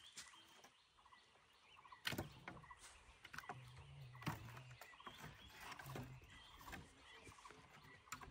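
Faint scattered knocks and snaps of charred wood, about half a dozen over several seconds, the clearest about two seconds in and again a little after four seconds.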